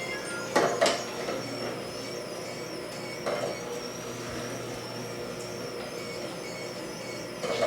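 Greenstar twin-gear juicer running: a steady motor hum with a high, slightly wavering whine, and a few short knocks.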